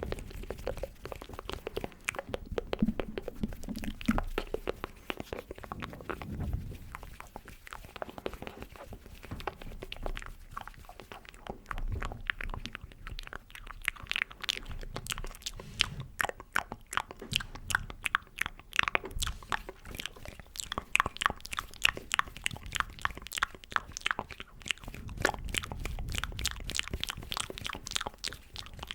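Close-miked ASMR mouth sounds: a rapid, continuous run of wet clicks and smacks, several a second, getting denser about a third of the way through.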